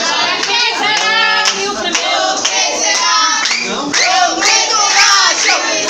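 A group of people singing together, many voices at once and overlapping.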